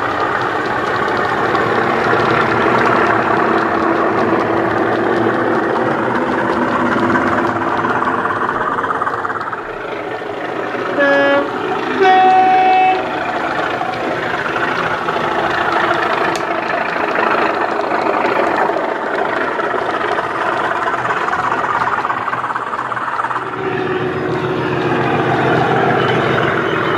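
DCC sound decoders in model Class 37 and Class 20 diesel locomotives playing English Electric diesel engine sound through small onboard speakers as the locomotives run. About eleven seconds in, a two-tone horn sounds: a short lower note, then a longer higher note.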